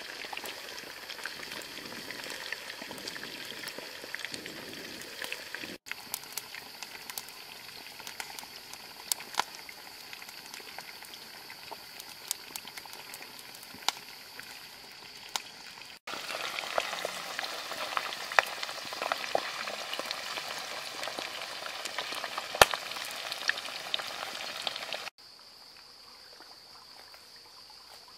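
Eel pieces deep-frying in hot oil in a wok: a steady bubbling sizzle with frequent sharp pops and crackles. About 25 seconds in, the frying stops and a quieter steady high hiss is left.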